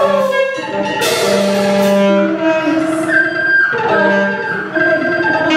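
Live experimental ensemble music with several held, overlapping pitched tones, some sliding in pitch, over a low tone that comes and goes, and a bright noisy wash about a second in.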